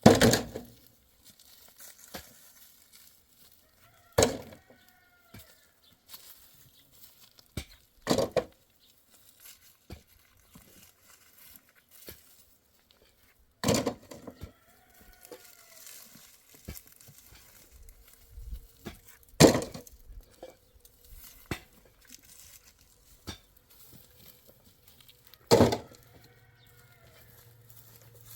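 Chickens calling in short, arching calls, while loud sharp knocks land about every four to six seconds, six in all. A low steady hum comes in near the end.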